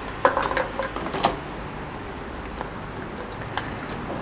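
Motorcycle's locking fuel filler cap being shut and locked with its key: a cluster of metallic clicks and key jingles in the first second or so, then a few faint ticks near the end, over a steady background noise.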